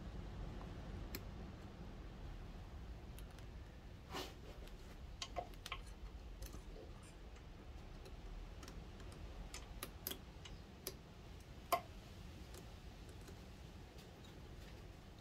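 Faint, irregular metallic clicks and taps as the steel kickstart shaft and gears of a pit bike engine are handled and slotted into mesh in the open casing. The sharpest click comes about three-quarters of the way in.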